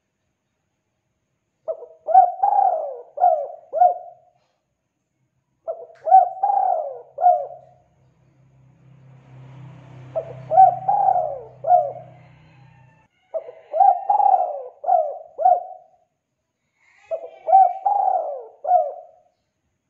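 Spotted dove (tekukur) cooing: five phrases of several quick notes each, repeated every three to four seconds.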